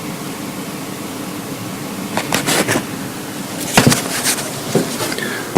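Steady hum and hiss coming out of speakers with no media playing, a sound the volume control does not change. From about two seconds in, irregular bursts of loud crackling noise break in over the hum, the loudest near the end.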